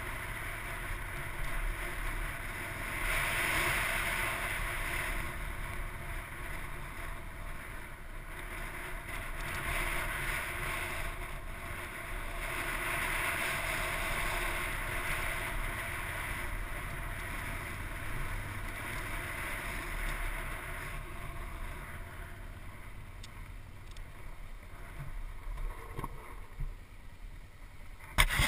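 Dirt bike riding over a rocky dirt track, heard from a helmet camera: wind rushing over the microphone with the engine running underneath. The rushing swells and fades, and a few sharp knocks come near the end.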